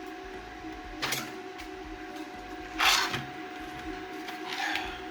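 Desoldering gun's vacuum pump sucking in short hissing bursts over a steady hum: a brief one about a second in, a louder one near the middle, and a weaker one near the end.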